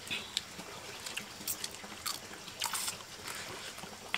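People chewing and crunching on grilled chicken: a scatter of short, sharp crunches and clicks.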